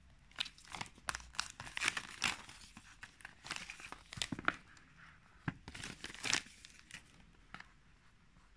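Clear plastic shrink-wrap being torn and stripped off a phone box: an irregular run of crinkles and rips that dies away near the end.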